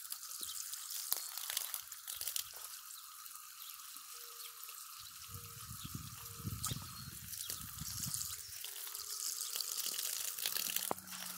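Water jetting steadily from a garden hose spray nozzle and splashing and spattering off a capuchin monkey's hand held in the stream.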